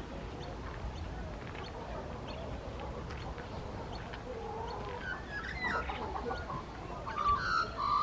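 Chickens clucking with small birds chirping over a low steady rumble; the clucking calls start about halfway through and are loudest near the end.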